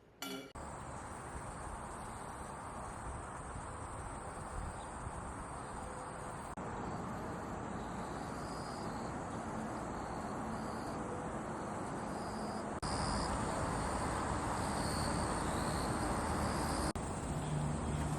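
Outdoor garden ambience: a steady high insect trill over a wash of background noise, with occasional short high chirps. The level steps up abruptly a few times, about a third, two thirds and near the end of the way through.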